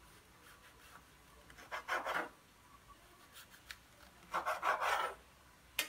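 Kitchen knife sawing through a grill-toasted shawarma wrap on a wooden cutting board: two rasping strokes, the second about a second long. A short click comes near the end.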